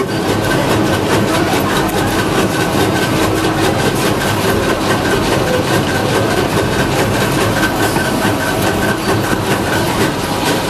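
Automated motor stator production machinery running, with a dense, rapid mechanical clatter over a faint steady whine.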